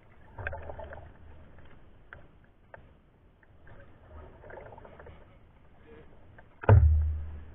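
Kayak paddle strokes splashing in calm water, with small knocks and drips, and one loud sudden thump near the end.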